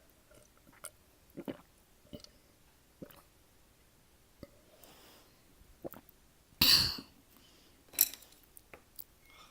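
A person drinking milk close to the microphone: faint clicks and small mouth and swallowing noises, then a loud throaty burst about two-thirds of the way in and a shorter sharp one a second later.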